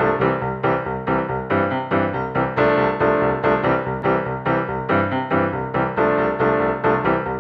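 Upbeat background music played on piano or electric keyboard, with quick, evenly struck notes and chords in a steady rhythm.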